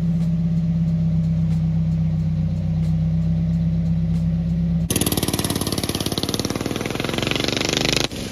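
Mazda Miata's four-cylinder engine idling steadily through its exhaust with a freshly installed high-flow catalytic converter, a smooth even hum. About five seconds in, it cuts abruptly to a louder, raspier go-kart engine running with rapid firing.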